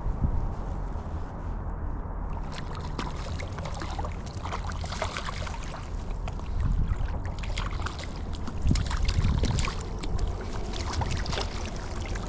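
River water splashing and sloshing close to the microphone in short, irregular bursts, over a steady low rumble of wind on the microphone.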